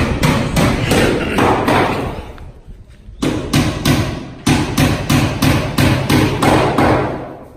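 Steady hammering, about three blows a second, with a short pause a little under three seconds in. The blows come while a worker is fitting a glass door frame, and each blow rings on briefly in the bare room.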